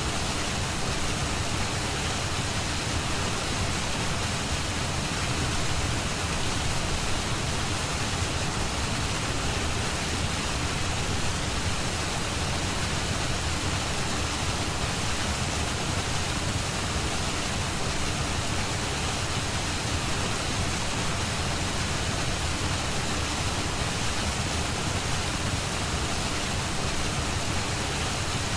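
Steady, even hiss of noise with no breaks or changes: the rain-like noise bed of a subliminal audio track.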